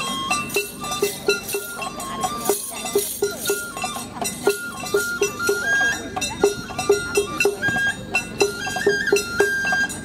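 Instrumental break in a Japanese folk dance song between sung verses: a high melody of held notes stepping up and down over a quick, steady beat.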